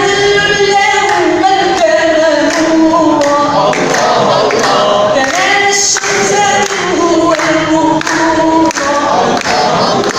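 A man singing an Arabic nasheed, with a choir-like backing of layered voices holding and gliding between sustained notes.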